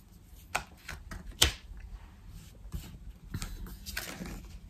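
Belline oracle cards being handled and laid down on a table: a few light taps and slaps of card, the sharpest about a second and a half in.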